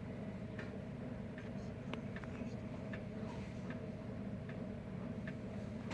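A steady low electrical or mechanical hum with faint, irregularly spaced clicks over it.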